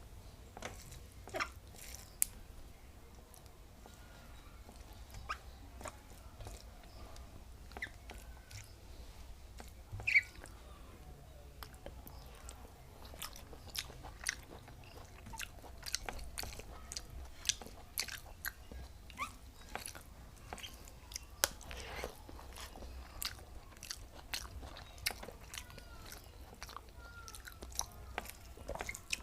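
Close-up eating sounds: chewing and biting on rice and cauliflower-papaya-potato curry, with frequent short, sharp mouth clicks and smacks at an irregular pace.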